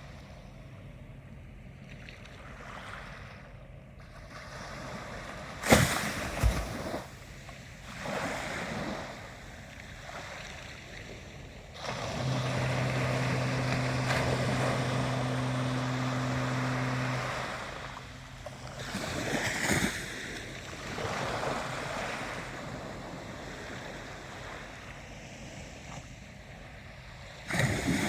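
Ocean waves washing in and ebbing in repeated surges. A sharp knock about six seconds in is the loudest moment, and a steady low hum runs for about five seconds in the middle.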